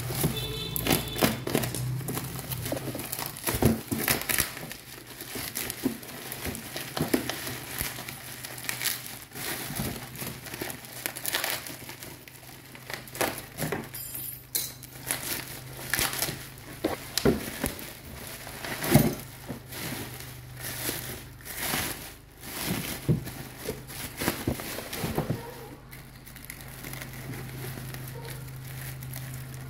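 Bubble wrap and plastic film crinkling and crackling as they are handled and pulled off a packed circuit board, with irregular crackles and small knocks.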